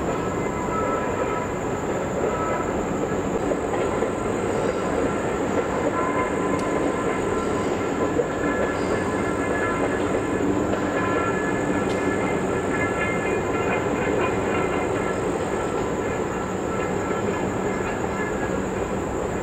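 Passenger train rolling steadily past, its coaches running on the rails in an even rumble, with faint steady high tones over it.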